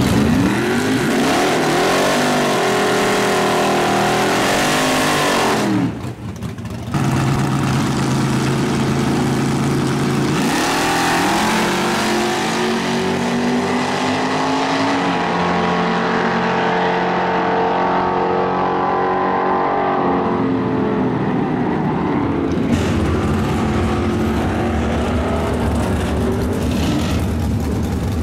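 Drag-racing car engines running hard, their pitch rising and falling as they rev and accelerate. There is a short break about six seconds in.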